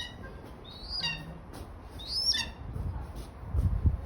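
A bird of prey calling: a high, thin call that rises and then drops, repeated about once a second. A low thump and rumble sound near the end.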